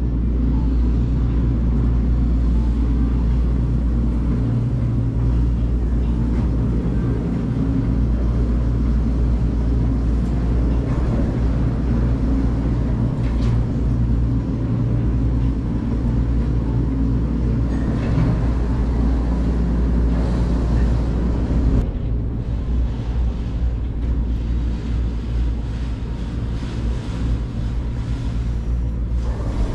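Drive machinery of a 2006 Doppelmayr gondola's top drive station running under the bull wheel: a steady low hum. It drops a little about twenty-two seconds in.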